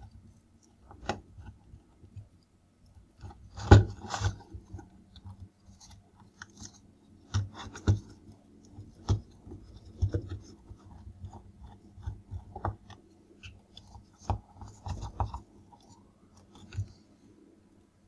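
Screwdriver working the terminal screws of a magnetic contactor while wires are handled: irregular small clicks, scrapes and rubbing, loudest about four seconds in.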